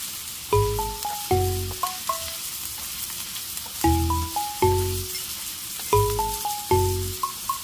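Sweet potato stems, onion and garlic sizzling in a hot pan as they are tossed with chopsticks, a steady hiss. Over it plays a light background tune whose deep plucked notes come in pairs every couple of seconds, louder than the sizzle.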